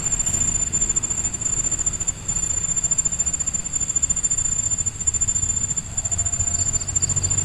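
Insects trilling: one steady, high-pitched, finely pulsing trill that does not let up, over a low rumble.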